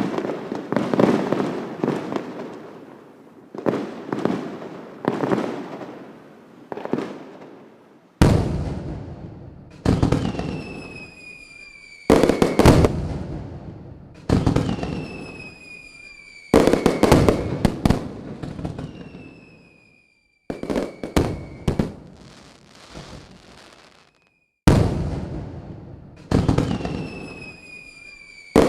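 Fireworks bursting one after another, a sharp bang every second or two with a crackling tail. Several bangs are followed by a whistle that falls slightly in pitch.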